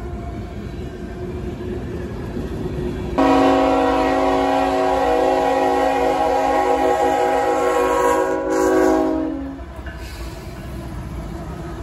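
Freight train rumbling past, then a diesel locomotive's multi-chime air horn starts abruptly about three seconds in and sounds one long, steady chord for about six seconds before cutting off, leaving the rumble of the passing train.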